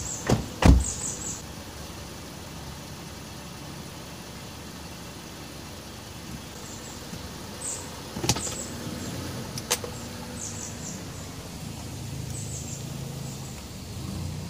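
Car door of a Kia K5 sedan shut with a heavy thump just after the start, followed by a quiet stretch. Two sharp clicks come about eight and nine and a half seconds in, followed by a low steady hum for the last few seconds.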